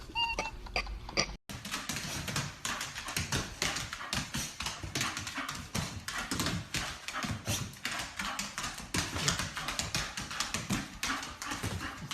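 A dog making a quick, irregular run of clicks and taps, with a brief dropout about a second and a half in.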